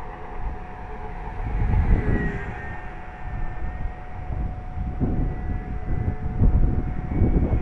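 Wind buffeting the microphone in uneven gusts, heaviest about two seconds in and again in the second half. Faintly over it comes a thin, drifting whine from the electric motor and propeller of a distant FMS Ki-61 Hien radio-control model warbird in flight.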